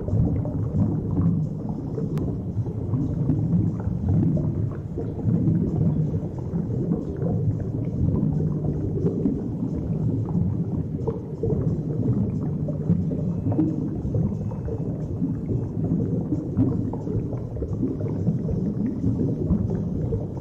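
Underwater ambience picked up by a diver's camera: a steady, low, muffled rumble.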